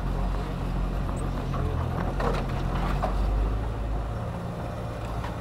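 UAZ off-roader's engine running steadily as it drives along a muddy track. Its note drops and eases about four seconds in, with a few faint knocks over it.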